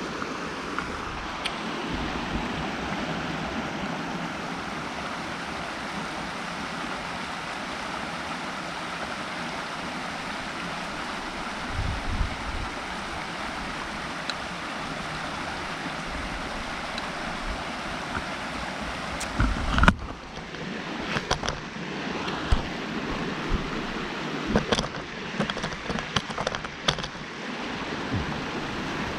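Steady rush of water flowing in a shallow creek. About two-thirds of the way through it cuts off abruptly, and the rest holds gusts of wind on the microphone and scattered knocks.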